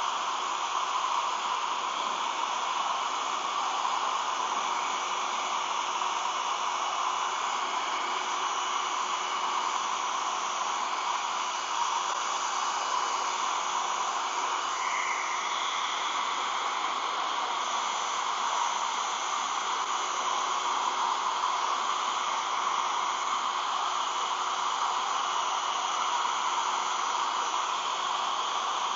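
Hair dryer running steadily: a constant rush of blown air with a faint steady tone under it, heating clear vinyl film so it can be stretched over a lens.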